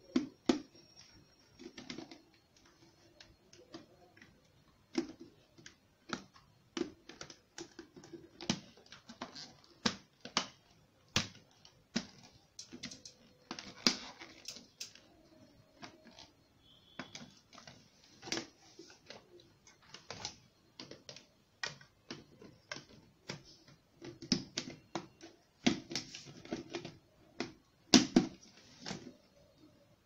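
Irregular plastic clicks, taps and knocks as the parts of a vacuum cleaner are handled and fitted together, sometimes in quick runs, with the loudest knock near the end.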